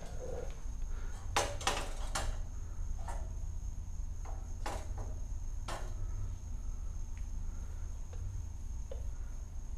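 Scattered clinks and knocks of metal dethatcher parts and tools being handled during assembly, a quick cluster of them a second or two in and single ones after, over a steady faint high tone.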